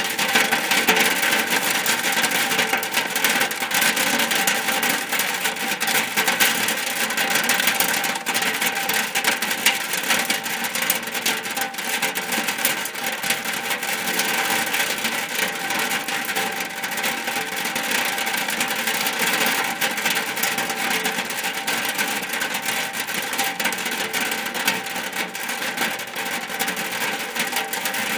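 Steady rain on a shack's roof: a dense, unbroken hiss of countless small drop impacts that holds an even level throughout.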